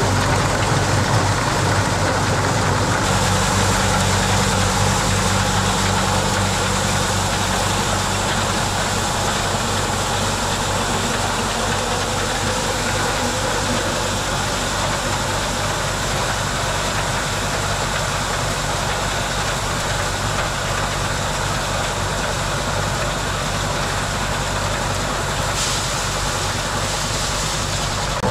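An engine running steadily at an even speed, with a constant low hum.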